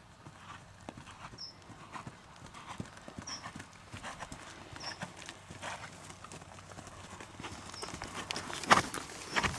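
A horse's hooves striking the arena surface in the regular beat of a trot. There is a louder burst of noise about a second before the end.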